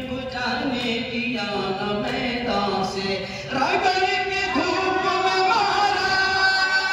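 A man singing a devotional Urdu song unaccompanied through a microphone and PA, in long held melodic lines. The singing gets a little louder about halfway through.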